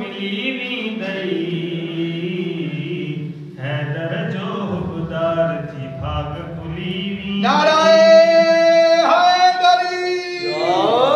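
A man chanting a devotional recitation in an unaccompanied, melodic voice through a microphone. About seven and a half seconds in he rises to a loud, long-held high note, then slides upward again near the end.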